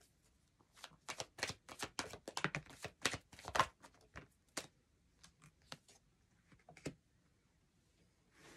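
A deck of oracle cards shuffled by hand: a quick run of card snaps and flicks for the first few seconds, thinning to scattered ticks, then a soft slide near the end as a card is laid on the cloth.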